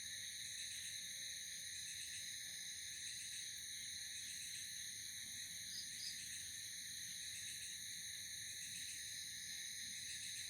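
Night insect chorus: a steady, unbroken high-pitched trilling in several layers, with two short chirps about six seconds in.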